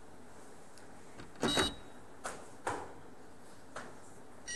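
Billiard balls knocking on a carom table: one sharp, loud knock about a second and a half in, then three lighter clicks. An electronic beep starts right at the end.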